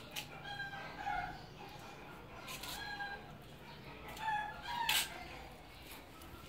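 Several short pitched animal calls, the loudest about four to five seconds in, with a few sharp clicks in between.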